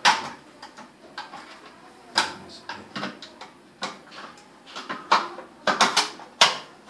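Hard plastic clacks and knocks from a toilet's plastic bidet spray unit being pressed and fitted back onto the ceramic bowl rim: a loud one at the start, scattered ones after, and a quick cluster near the end.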